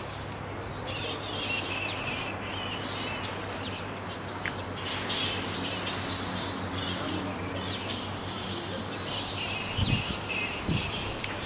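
A roosting colony of straw-coloured fruit bats calling continuously: a dense mix of high, shrill squeaks and short calls, over a steady low hum. A couple of low thumps come about ten seconds in.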